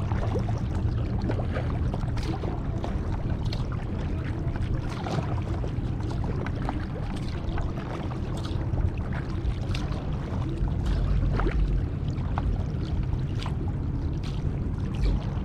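Kayak paddles dipping and splashing in the water, irregular small splashes over a steady low rumble.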